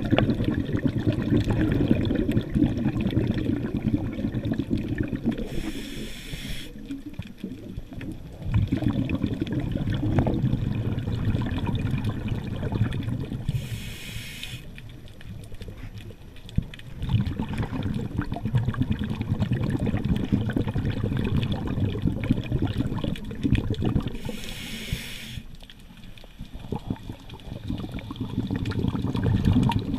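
A diver's breathing heard underwater: long stretches of low rumbling, bubbling water noise, broken three times by a short high hiss about every nine seconds, as with air drawn through a scuba regulator.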